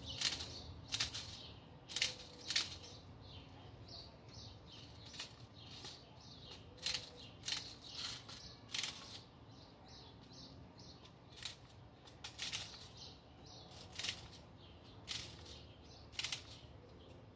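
Sharp plastic clicks at an uneven pace, about one a second, as BBs are pushed from a handheld speedloader into an airsoft Glock 18C gas magazine.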